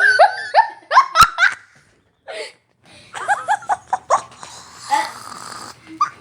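Hard, breathless laughter in bursts of rising syllables, with a sharp click a little over a second in and a long wheezing breath near five seconds.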